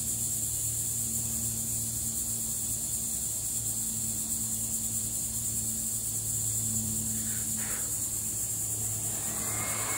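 Steady high-pitched drone of insects in the garden vegetation, over a low steady hum; a thin steady whistle-like tone joins near the end.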